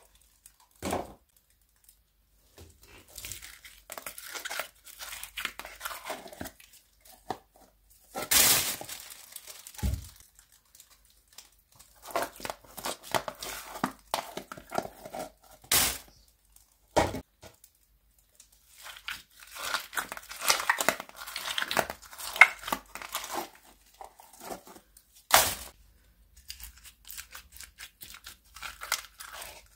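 Bead-filled slime being squeezed and pulled out of plastic tubs and dropped into a bin lined with a plastic bag. There are irregular sticky clicks and rustling in stretches, broken by about four sharp, louder knocks.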